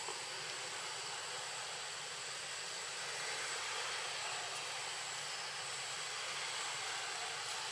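Steady, even hiss of outdoor background noise with a faint, thin high tone in it.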